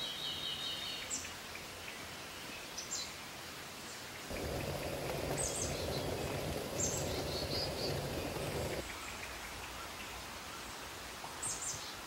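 A pot of water boiling on a camp stove, a steady rushing bubble and hiss that starts abruptly about four seconds in and stops as abruptly about four and a half seconds later. Small birds chirp now and then, briefly, over a steady background hiss.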